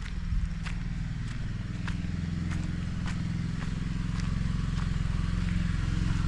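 A vehicle engine running steadily, slowly growing louder as it approaches, with footsteps at a walking pace.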